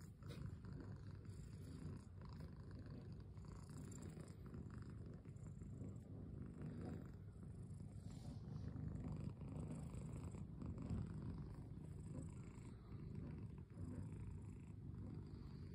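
Domestic cat purring steadily as its head and chin are stroked.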